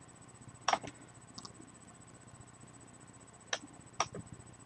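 Quiet room with a few faint, sharp clicks, about five in all, in two small clusters near one second in and again around three and a half to four seconds.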